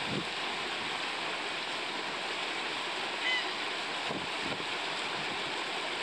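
Steady rush of flowing river water, with one short high bird chirp about three seconds in.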